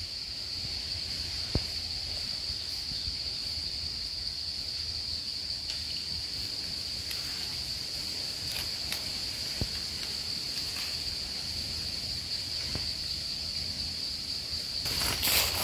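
Insects droning steadily at one high pitch, with a few faint ticks. Near the end, footsteps crunch through dry leaf litter.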